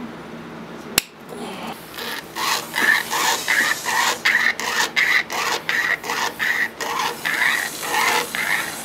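A thin wire saw drawn back and forth across an alpaca's tooth, cutting it down with a rhythmic rasp at about two strokes a second, starting about two seconds in. A single sharp click comes about a second in.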